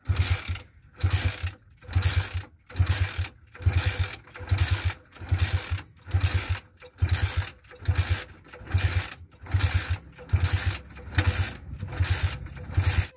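Small single-cylinder motorcycle engine being kick-started over and over, about once a second: each kick gives a short burst of cranking and ratcheting, and the engine does not catch.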